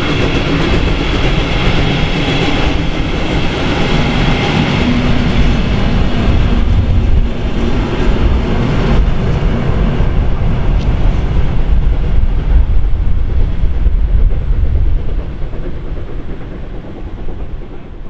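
Passenger train rolling past: coach wheels clattering over the rails, then the DR V100 diesel locomotive at the rear of the train running by with a deep engine sound. The sound fades away near the end as the train moves off.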